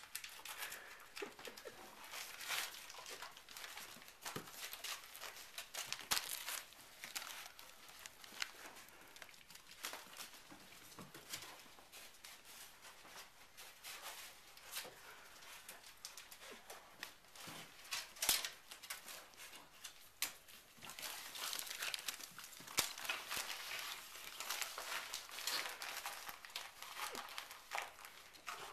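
Wrapping paper crinkling and tearing in irregular bursts as a dachshund tugs at and carries a wrapped Christmas present in its mouth, busiest over the last third.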